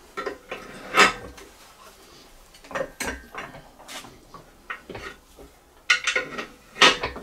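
Irregular metal clinks and knocks of a spanner working the bolt of a cylinder-liner puller on an aluminium engine block, as load is wound onto a stuck liner. Loudest about a second in and again near the end.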